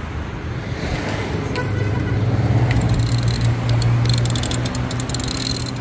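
A road vehicle passing, its low engine hum swelling and then fading away. Light clicks and rustling sound over it.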